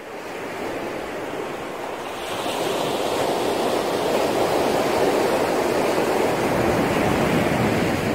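Ocean surf washing onto a sandy beach: a steady rush of breaking waves that swells louder about two seconds in.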